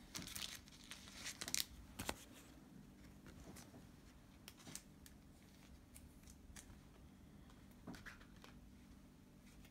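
Faint handling noise of trading cards and their plastic sleeves: a few short clicks and slides, most in the first two seconds, then sparse quieter ticks.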